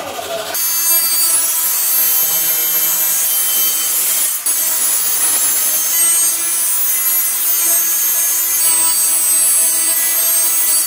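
Compact handheld electric circular saw cutting lengthwise through a white-faced board. It starts about half a second in and runs steadily with a high whine, dipping briefly near the middle.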